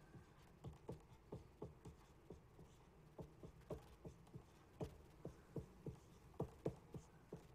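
Marker writing on a whiteboard: a run of faint, irregular taps and short strokes, about two or three a second, as letters are printed.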